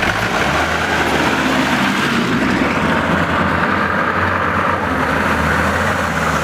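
Tractor engine running steadily under load as the tractor drives down a steep, muddy off-road trial course.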